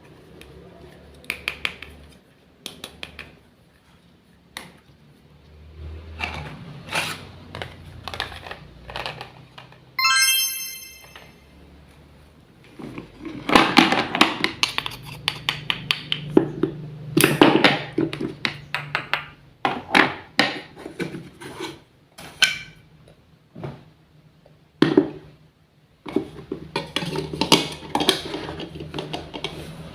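Miniature kitchen utensils and dishes clicking, tapping and clinking, with clusters of quick taps about a third of the way in and again near the end. About ten seconds in, a brief run of high, ringing, chime-like tones.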